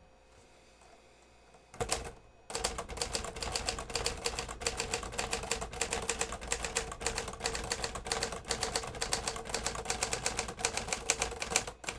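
1965 Hermes 3000 manual portable typewriter being touch-typed fast: a steady, rapid patter of keystrokes, the type bars striking the platen, kept quiet by the sound-dampening material inside its all-metal body. A short knock comes about two seconds in, and the typing starts half a second later.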